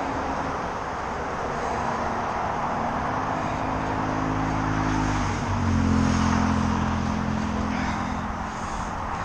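Traffic on the A5 dual carriageway: a steady rush of tyres and passing vehicles, with one vehicle's engine hum swelling, loudest about six seconds in, then fading.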